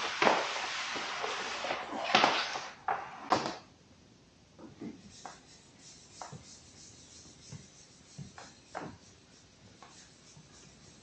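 Vinyl wrap being rubbed and pressed down onto a kayak hull by hand, with loud rustling from the wrap and its backing sheet for the first three seconds or so, then only quiet scattered rubs and taps.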